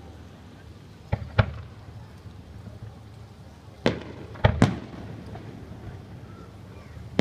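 Aerial fireworks shells bursting in sharp bangs with a short echo after each: two about a second in, three in quick succession around four seconds in, and one more at the end.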